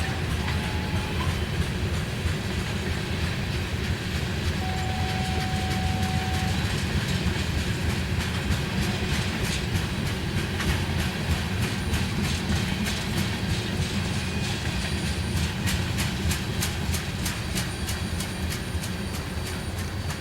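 Freight train of tank cars rolling past: a steady low rumble of steel wheels on rail, with wheel clicks over the rail joints growing frequent in the second half.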